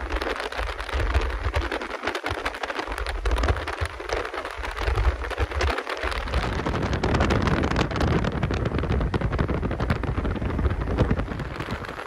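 Wind buffeting the microphone from a moving train's open window, a loud rushing crackle over the train's low running rumble.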